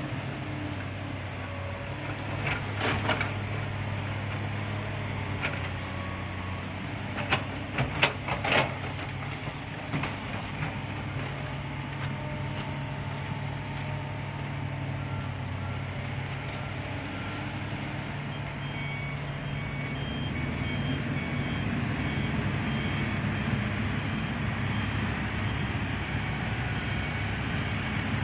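Heavy machinery at a coal stockpile: an excavator's diesel engine runs steadily, with a few loud knocks, several close together about a third of the way in. From about midway a reversing alarm beeps over and over.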